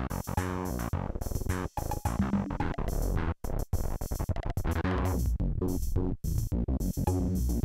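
Polivoks analog synthesizer playing a repeating rhythmic pattern of short, choppy pitched notes while its panel knobs are turned, the tone brightening and darkening as it goes.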